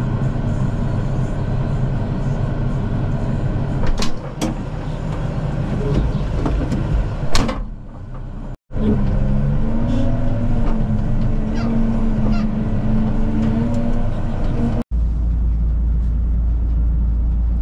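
Diesel tractor engine running steadily, with a few sharp metallic clanks about four and seven seconds in. Across edit cuts, a wavering whine rides on the engine note, and near the end a deeper steady rumble takes over.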